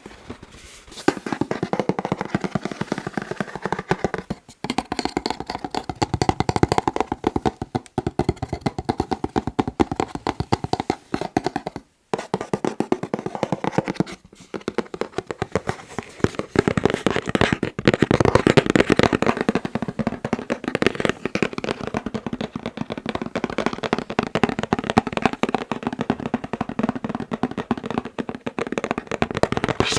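Fingers tapping rapidly and continuously on a box, many taps a second, with brief pauses about four, twelve and fourteen seconds in.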